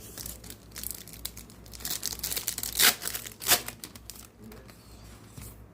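A foil Pokémon card booster pack wrapper crinkling and tearing open: a run of sharp crackles, the two loudest a little before the middle and just after it, dying away near the end.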